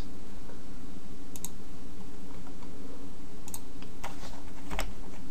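A handful of sharp computer keyboard and mouse clicks, scattered and more frequent in the second half, over a steady low hum.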